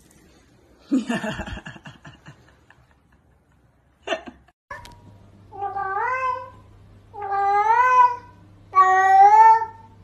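Cat meowing four times in a row: long meows of about a second each that rise in pitch and then hold, growing louder.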